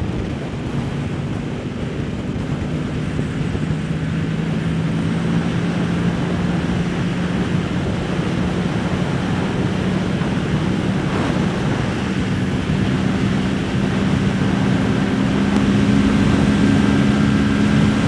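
The parallel-twin engine of a 2023 Kawasaki Ninja 650 is pulling hard at highway speed in a high gear as the bike accelerates, and its note climbs slowly and steadily. Heavy wind rush runs under it.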